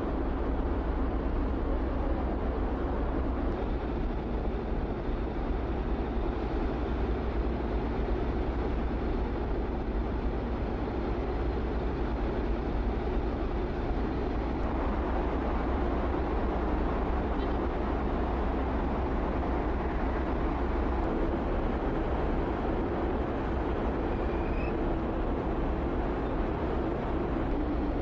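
Steady rumbling drone of a large car ferry's engines on deck with a rushing noise over it, while the ship manoeuvres in harbour with a tugboat alongside. The deepest part of the rumble drops away about two-thirds of the way through.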